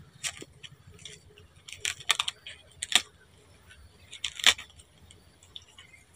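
Scattered sharp clicks and crackles, clustered about two seconds in, with the loudest about four and a half seconds in: young monkeys scrabbling on a bamboo pole and the plastic bag wrapped around its top as they climb.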